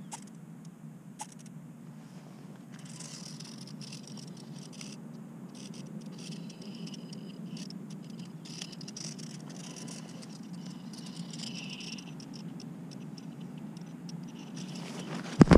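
A GoPro lying in grass picks up a steady low hum with faint, irregular high-pitched crackling. Just before the end there is a sudden loud knock and rustle as the camera is handled.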